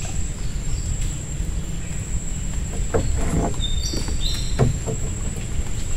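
Outdoor river-bank ambience: a steady low rumble with a constant thin high tone over it. Short chirping bird calls come about two-thirds of the way in, and a few soft knocks fall around the middle.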